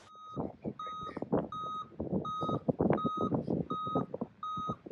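A tow truck's reversing alarm beeping steadily, about one beep every 0.7 s, as the truck backs up. Under it runs an irregular low crunching rumble from the truck's engine and its tyres on the dirt.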